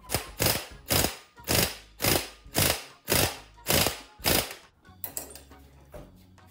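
Impact wrench hammering at the very tight 36 mm flywheel gland nut of an air-cooled VW engine, in nine short bursts about two a second, stopping a little under five seconds in.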